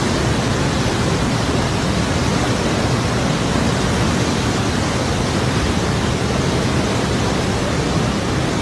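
Parvati River in flood, its water rushing in a loud, steady noise.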